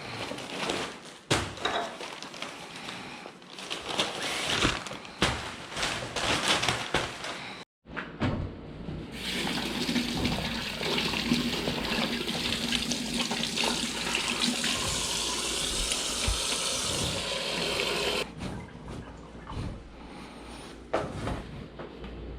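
Water running steadily from a tap for about nine seconds in the middle, with scattered clicks and knocks of handling before and after.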